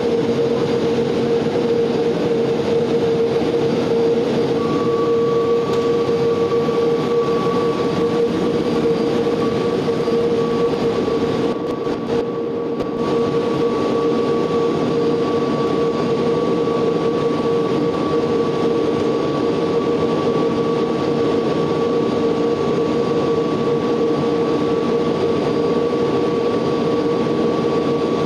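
SNCF gas-turbine turbotrain running with its turbine engine: a steady whine over a broad rushing noise. One constant tone is heard throughout, and a second, higher tone joins about five seconds in. The sound dulls briefly around twelve seconds in.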